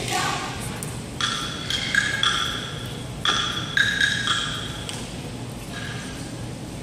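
A short melody of about seven high, ringing struck notes in two phrases, between about one and four and a half seconds in, then a faint last note.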